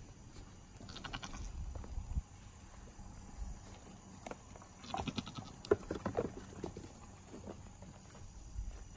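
Nigerian Dwarf goat kids bleating, two short calls about a second in and again around five seconds in, with small hooves tapping and scuffing on loose wooden boards and leaf litter.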